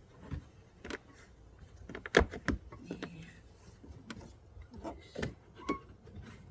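Hands working plastic trim and lining in a car trunk: a scattering of knocks, clicks and rattles. The loudest two come about a third of a second apart, about two seconds in.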